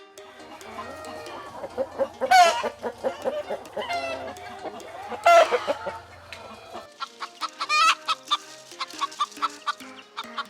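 Chickens clucking, with two loud, short squawks about two and five seconds in and another call near eight seconds, over faint background music.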